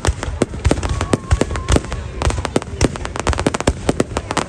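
Fireworks bursting in rapid, irregular succession: many sharp bangs a second over a continuous low rumble.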